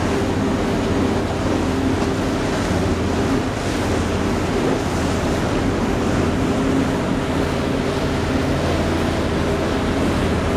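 Steady low drone of a boat engine with water washing, and wind buffeting the microphone.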